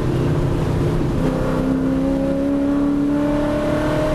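V8 race car engine under hard acceleration, heard from inside the cabin. Its pitch dips about a second in, then climbs steadily as the car gathers speed.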